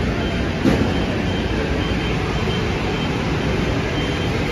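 Steady background noise of a buffet restaurant: a low rumble and hiss with no clear voices, and one short click about 0.7 seconds in.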